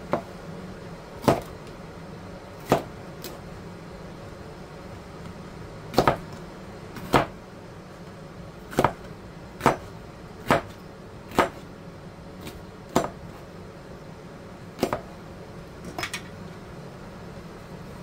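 A kitchen knife coming down on a cutting board while cutting cucumbers: about a dozen sharp chops at uneven intervals, a few in quick pairs, with a short cluster near the end.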